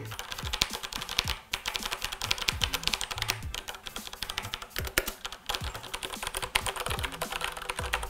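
Corsair K63 wireless mechanical keyboard with Cherry MX Red switches, its keys pressed in a rapid, uneven run of keystrokes close to the microphone, with a few short pauses.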